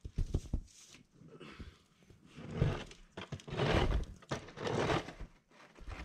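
Snow crunching and being crushed in a series of irregular bursts, about one a second, with a few sharp knocks between them.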